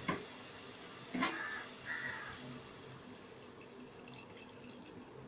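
Water poured from a jug into a nonstick pan of sautéed mushrooms, a faint steady splashing. A short knock comes about a second in.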